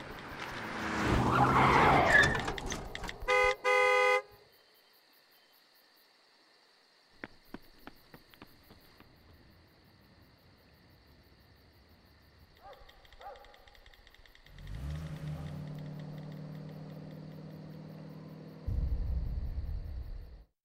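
A car approaching with a rising rush of noise, then a car horn sounding twice, a short toot and a longer blast, about three and a half seconds in. After a near-quiet stretch with a few faint clicks, a low steady hum sets in and gives way to a louder, deeper rumble near the end.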